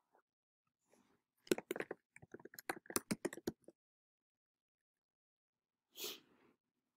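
Computer keyboard typing: a quick run of roughly a dozen key presses over about two seconds, then a single brief soft noise near the end.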